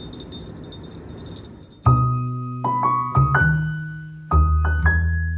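Background piano music: a slow tune of single struck notes, each dying away, begins about two seconds in. Before it there is only a faint hiss.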